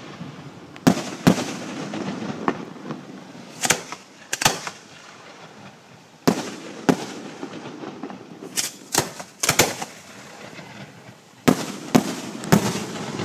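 Fireworks display: aerial shells bursting in sharp bangs at irregular intervals, about fifteen in all, some in quick pairs and triples, each trailing off in a short echo.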